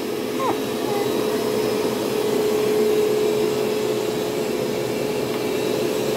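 Bissell ProHeat Pet Turbo upright carpet cleaner running: a steady suction-motor drone with a constant hum, unchanging throughout.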